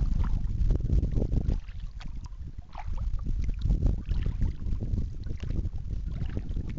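Wind buffeting the microphone of a camera mounted on a kayak's bow, a low, uneven rumble that rises and falls in gusts, with water lapping at the hull.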